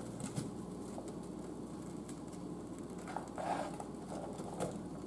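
Diced onion being pushed off a plastic cutting board into a skillet with a utensil: light taps and scrapes of the utensil on the board, with pieces pattering into the pan.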